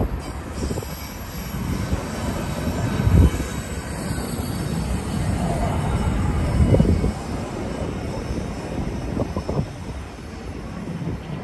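Freight train rolling past: a steady low rumble of wheels and cars on the rails, with a few heavier clunks.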